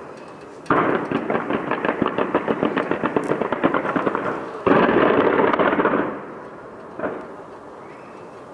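Fireworks going off in rapid volleys. About a second in, a sudden run of fast crackling bangs lasts several seconds. A second loud volley comes near the middle, then one more bang about seven seconds in before it dies away.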